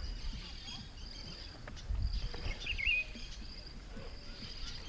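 Insects droning steadily at a high pitch, the drone breaking off now and then, with one short bird chirp a little past halfway and a low rumble underneath.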